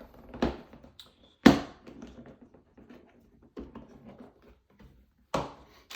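Plastic pistol case being handled and opened: a few sharp knocks and clacks, the loudest about a second and a half in, with small clicks and rattles between them and another knock near the end.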